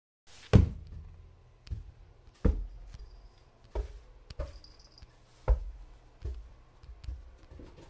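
A series of about nine dull thumps and knocks, spaced unevenly about a second apart, the loudest near the start and about five and a half seconds in.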